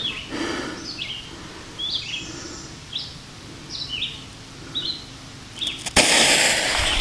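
A bird chirps over and over in short, high, falling notes, about one a second. About six seconds in there is a sudden crack, then a loud steady hiss, typical of a firecracker fuse catching and spitting.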